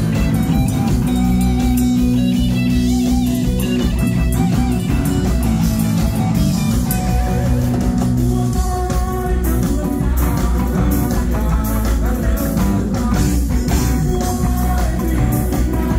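Live rock band playing loud: electric guitars over bass and a drum kit. The cymbals and drums come through more busily from about halfway on.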